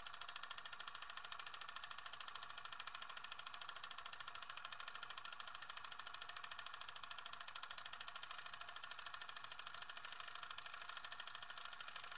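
Film projector running: a steady, rapid, even clatter of the shutter and film mechanism.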